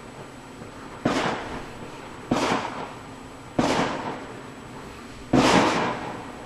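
Fireworks going off: four sharp bangs about a second and a half apart, each dying away over about half a second, the last the loudest.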